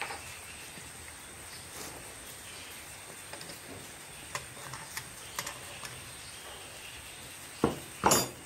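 Screwdriver tightening the bolts of an electric water pump's metal housing: scattered small clicks and ticks of the tool working in the bolt heads. Near the end come two loud knocks, the second a sharp metallic clank, as the tool and pump are handled.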